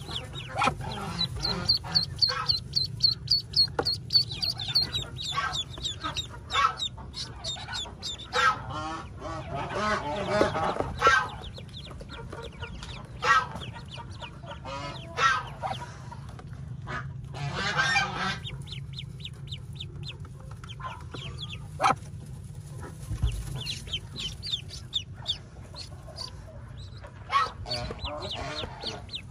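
A brood of newly hatched Muscovy ducklings peeping, many short high chirps overlapping in rapid runs, over a steady low hum.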